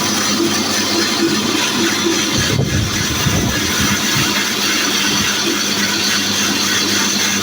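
Horizontal band sawmill running steadily: a constant motor hum under an even hiss. A low rumble comes in about two and a half seconds in and fades out a couple of seconds later.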